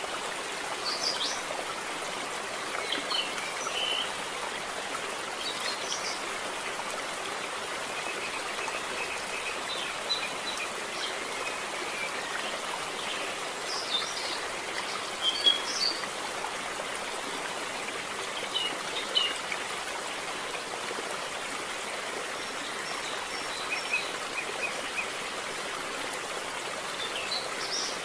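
Thin, high begging cheeps of a canary nestling, short ones coming every couple of seconds, over a steady hiss.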